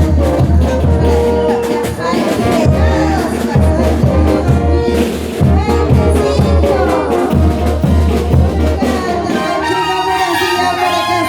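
Bolivian carnival brass band playing a lively dance tune: trumpets and trombones over a heavy low bass line. The low bass falls away about nine seconds in.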